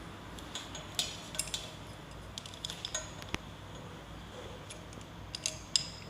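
Scattered light metallic clicks and clinks of small metal parts being handled, irregular and sharp, with the strongest click near the end, over a faint steady low hum.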